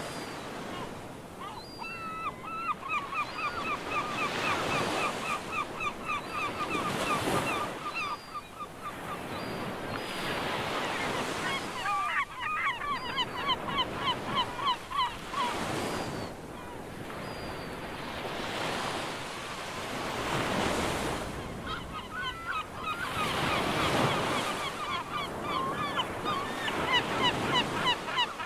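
Ocean surf washing in slow swells, with birds calling in rapid runs of short repeated notes, about four a second.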